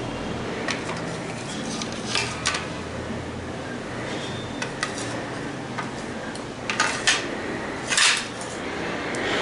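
Light clinks and knocks of kitchen dishes, a plastic tray and a glass dish, against a countertop as food is handled. A few scattered taps, with the loudest knocks about seven and eight seconds in.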